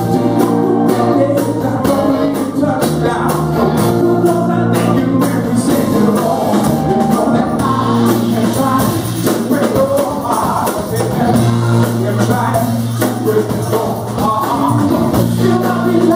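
A live band playing soul music, with drums, bass guitar and electric guitar under a lead singer, recorded in a small club.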